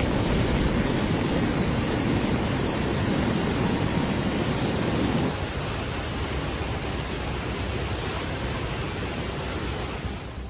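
Steady rushing noise of water, dense and even, which drops a little and changes character about five seconds in.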